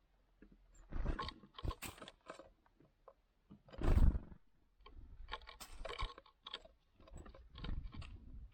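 Great tits flapping, landing and scrabbling on a wooden platform feeder close to the microphone, scattering seed: irregular bursts of wing flutter, scratching and rustling, loudest about four seconds in.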